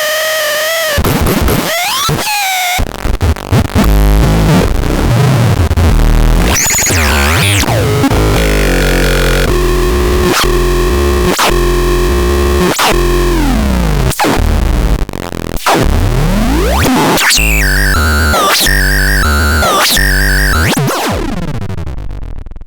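Noiseratu electronic noise instrument putting out harsh, chaotic synth noise: tones that slide and warble up and down over stepping low bass pulses, with sudden dropouts. A held tone midway slides downward, fast chattering warbles follow, and the sound fades out at the end.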